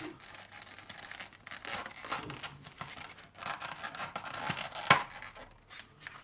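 A small packet being handled and torn open: irregular crinkling and tearing, with one sharp click about five seconds in.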